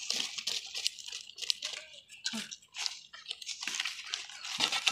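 Fresh sal leaves crinkling and crackling as hands fold and press them into a parcel around chicken, in quick irregular crackles.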